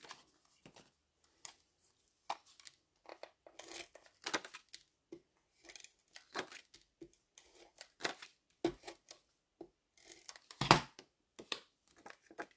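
Card stock being handled and slid about on a glass craft mat, with a tape runner drawn across the paper to lay down adhesive: a series of short, irregular rasps and taps, the loudest about ten and a half seconds in.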